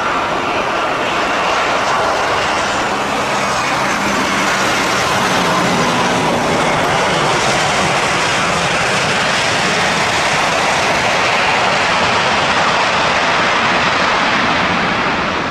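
Airbus A320's IAE V2500 turbofan engines during landing and rollout: a steady, loud rush of jet noise with a faint whine, falling away near the end.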